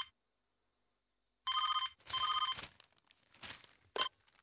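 Electronic telephone ring: steady warbling tones in two short bursts about a second and a half in, then a few faint rustles and one last brief burst of the ring near the end, cut short as the call is answered.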